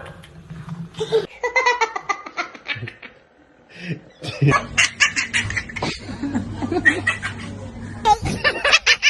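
A man's high, child-like laughter in a string of repeated laugh clips: bursts of rapid, pulsing laughs, with a short pause about three seconds in.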